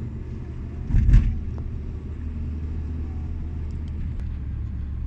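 Road and engine noise from inside a moving car's cabin: a steady low rumble, with a brief louder thump about a second in.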